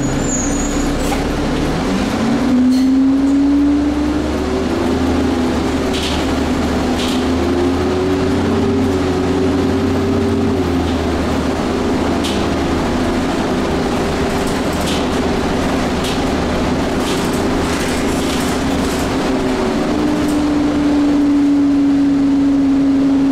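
Interior sound of a Nova Bus transit bus under way: the drivetrain whine rises as the bus pulls away from a stop about two seconds in, then runs fairly steady with small shifts in pitch over a low rumble and road noise. A few short clicks or rattles come through now and then.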